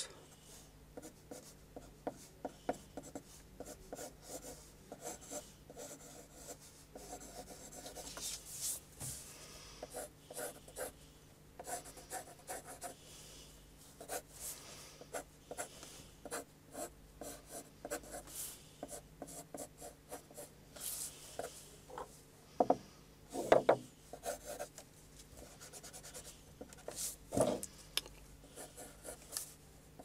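Graphite pencil sketching on paper: many short scratchy strokes as an ellipse is drawn freehand. A few louder bumps come about three-quarters of the way through.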